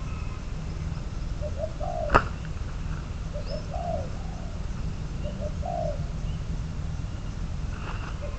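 Spotted dove cooing, a short phrase repeated about every two seconds. A single sharp click about two seconds in is the loudest sound, over a steady low rumble.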